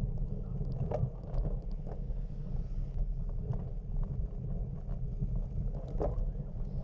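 Wind buffeting the microphone, a steady low rumble, with a few faint short sounds over it.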